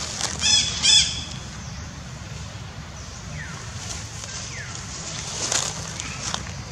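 Two short, shrill animal calls in quick succession about half a second and a second in. These are followed by fainter, short downward-sliding calls and another sharp call near the end.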